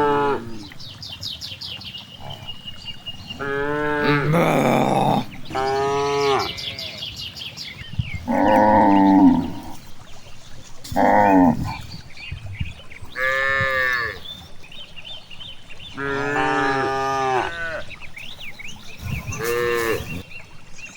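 Cattle mooing again and again, about seven long calls a second or two each with short pauses between, several of them rising and falling in pitch.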